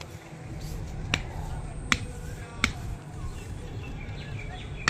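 Three sharp clicks about three-quarters of a second apart over a steady low rumble.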